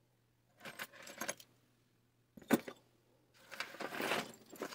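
Small metal pieces jingling and clattering in three bouts, with a single sharp knock about two and a half seconds in.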